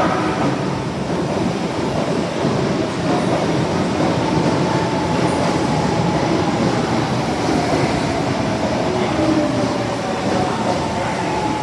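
Tanimachi Line subway train running, a steady rumble of wheels and running gear with a faint motor whine that slowly falls in pitch in the second half.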